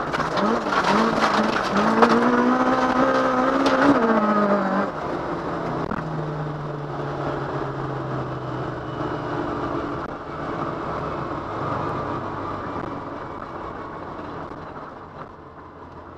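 Rally car engine heard from inside the cockpit, revving hard with quick rises and drops in pitch as it changes gear, then easing off about five seconds in to a lower, steady drone that slowly fades away near the end.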